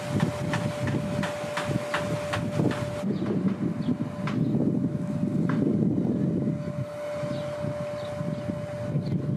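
Outdoor wind rumbling on the microphone, with a faint steady high tone at times and about two light ticks a second in the first few seconds.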